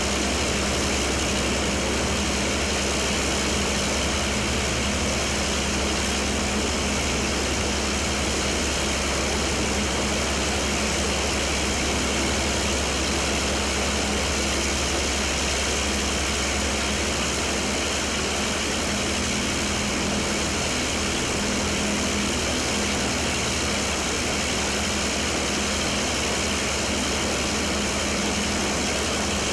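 A Fairey Firefly's Rolls-Royce Griffon V12 piston engine idling steadily on the ground, its propeller turning, with a constant low, droning hum.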